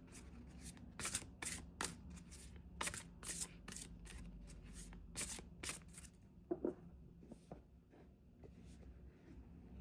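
Hands shuffling a deck of Lenormand cards: a quick, irregular run of soft card flicks and slaps that stops about six seconds in, followed by quieter card handling with a short low thump.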